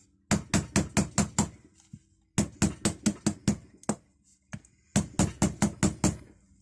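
Light, rapid hammer taps on a rusty, seized padlock to jar it free: three quick runs of about six taps each, with two single taps between.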